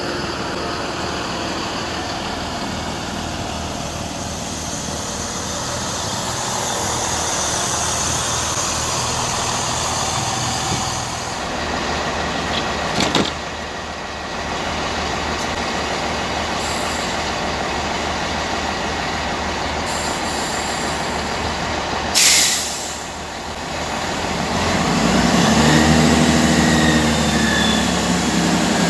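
Steady rail rumble at a station, then a Class 57 diesel locomotive, 'Tintagel Castle', with its two-stroke EMD V12, passing close along the platform hauling a rake of empty sleeper coaches. The engine's deep drone grows loud in the last few seconds, and a brief loud rush of noise comes about two-thirds of the way in.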